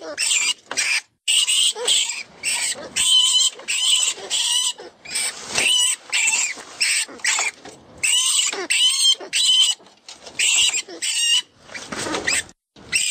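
FoxPro 'Vermin Pest Control' rodent distress call: a rat's shrill squeaks and squeals in quick, uneven runs of several a second, with short breaks between them. It is a predator-caller sound meant to draw in foxes.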